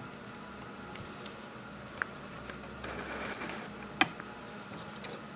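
Quiet hand sewing: soft rustling as fabric, needle and thread are handled and stitched, with two small clicks about two and four seconds in, over a faint steady hum.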